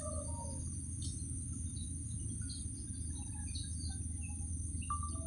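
Steady high-pitched insect drone with scattered short bird chirps over a low steady rumble. Near the end a distant locomotive horn begins to sound, a held chord of several tones.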